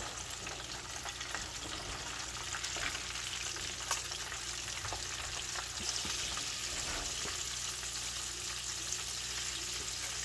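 Whole flour-coated rockfish deep-frying in a pan of hot oil: a steady crackling sizzle with scattered pops, as hot oil is ladled over the fish and a second floured fish is dipped into the oil.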